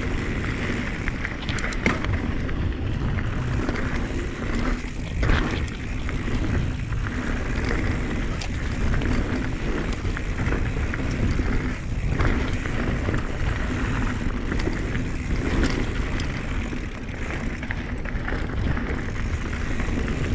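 Mountain bike ridden down a dirt trail: a steady rumble of tyres over the ground and wind buffeting the microphone, with scattered sharp clicks and knocks from the bike's chain and frame.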